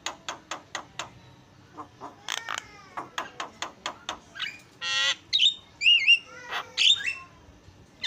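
Javan myna singing: a quick run of sharp chipping notes, then a harsh rasping note about five seconds in, followed by loud whistled notes that glide up and down.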